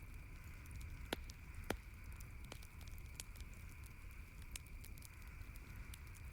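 Campfire crackling: a steady run of small snaps, with two louder pops about a second and a half in.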